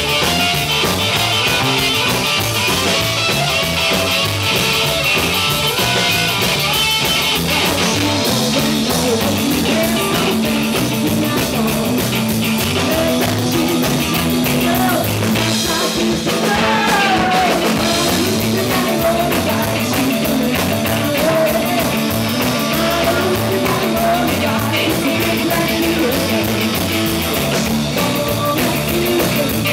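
Rock band playing live: electric guitar and drums with a sung vocal.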